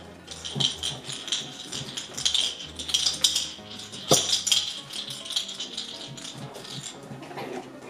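Background music with a low bass line and steady rattling, shaker-like percussion, and one sharp knock about four seconds in.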